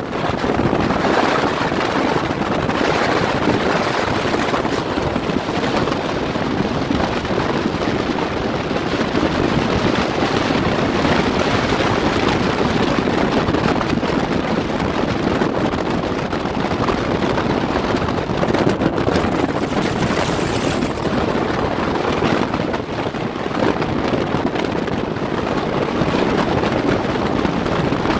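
Steady rush of wind on the microphone over a bass boat's outboard motor running at speed across choppy water.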